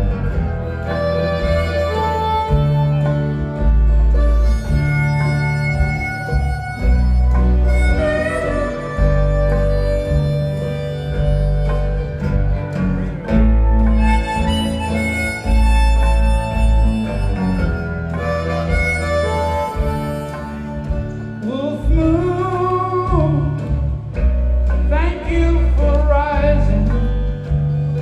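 Live band music: a harmonica carries the melody over guitar and a pulsing bass, with bending notes near the end.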